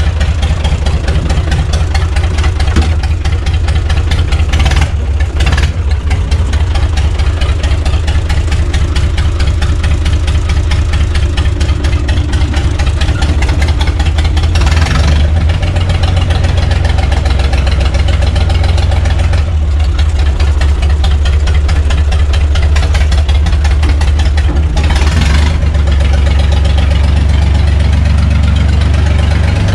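UTB U445 tractor's diesel engine running steadily at idle, heard loud and close from the driver's seat.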